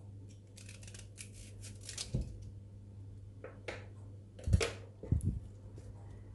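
Small knife cutting and snapping florets off a raw cauliflower head: a run of crisp cracks and crunches, then a few knocks on the wooden cutting board as pieces are cut and set down.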